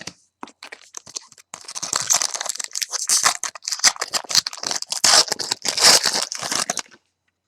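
Foil trading-card pack wrapper being torn open and crinkled: a dense run of crackling and rustling that starts about a second and a half in and stops shortly before the end.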